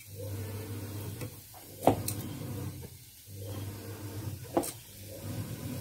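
Soft scraping of a hand scooping coarsely ground wet rice out of a stainless-steel mixer-grinder jar, with a few sharp knocks and clinks of the steel jar, twice close together about two seconds in and once more near the end.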